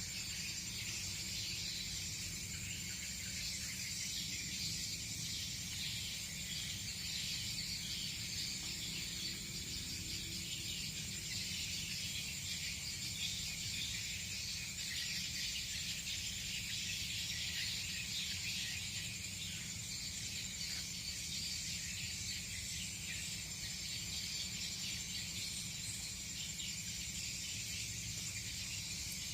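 Steady outdoor insect chirring, a continuous high shrill tone over dense high chatter, with a low steady hum beneath.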